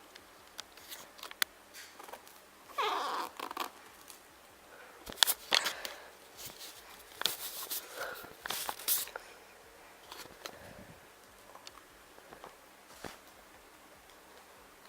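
Scattered clicks and rustles, with a short meow-like call about three seconds in.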